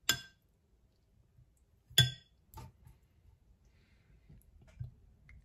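Metal spoon clinking against a glass soup bowl twice, about two seconds apart, each a sharp ringing clink.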